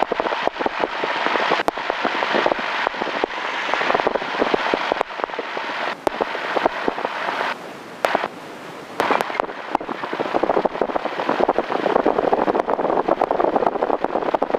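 Grumman light aircraft's single piston engine running at taxi power, heard from the cockpit as a steady, dense crackling rumble. It drops quieter twice, briefly, near the middle.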